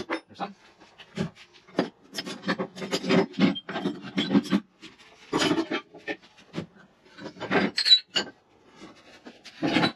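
Steel bar stock being pulled from a storage rack and laid on a wooden workbench: metal bars scraping and sliding against one another, with irregular knocks of steel on wood and a brief clink near the end.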